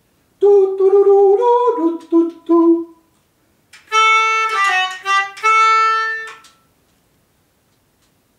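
Two short melodic phrases with a brief gap between them. The first is a man singing about five notes. The second is a melodica playing a few held, reedy notes that step down and back up to the opening note.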